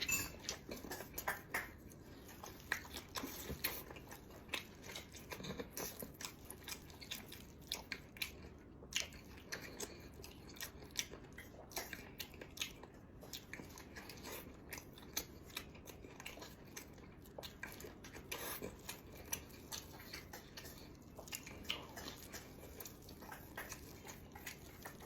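Close-up chewing and biting of food: irregular wet mouth clicks and smacks, a few each second.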